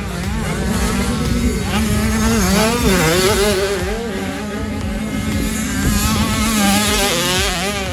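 Motocross bike engines running on track, several engine notes rising and falling as the riders rev up and back off, over a steadier engine note.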